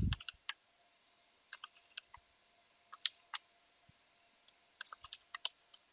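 Computer keyboard keys clicking in short, irregular, sparse strokes, as a command is typed.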